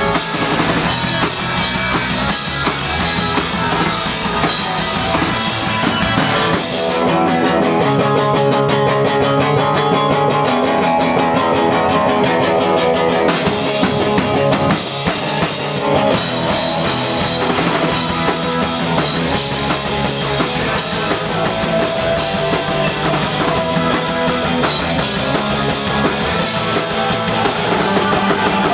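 Live punk rock band playing: distorted guitars, bass and drum kit. About seven seconds in, the drums and cymbals fall away for several seconds, leaving sustained guitar chords, then the full band crashes back in.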